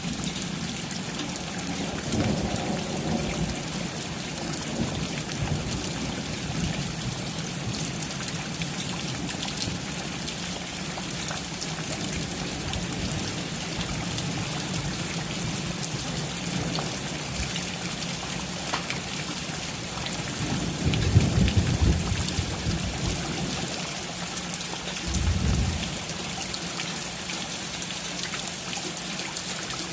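Steady rain with thunder rolling in the distance: a low rumble about two seconds in, the loudest roll about twenty seconds in, and a shorter one a few seconds after it.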